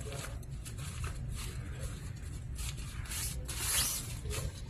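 A tripod's carry bag being unzipped and the tripod slid out of it: several short zipping and rubbing rasps, the longest and loudest a little after three seconds in.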